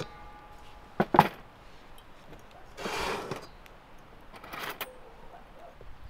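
Cookware handled on a wooden table: a light clink with a brief ringing at the start, then two sharp knocks about a second in, the loudest sounds. Two short rustling swishes follow, near the middle and later on.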